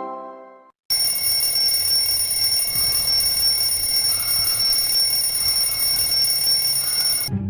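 A bell ringing nonstop for about six seconds, starting about a second in and cutting off abruptly near the end. Just before it, the last notes of a plucked, harp-like tune fade out.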